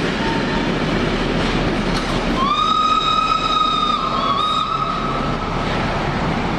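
Passenger coaches of a train hauled by steam locomotive 97 501 rolling past on the track, with a steady rumble. About two and a half seconds in the locomotive's steam whistle sounds one long blast of about three seconds, sliding up at the start and wavering briefly in pitch partway through.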